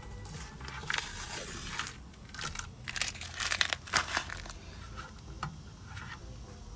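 Blue painter's tape being peeled off a drilled brake rotor and crumpled: crackling, tearing bursts about a second in and again, louder, around three to four seconds in.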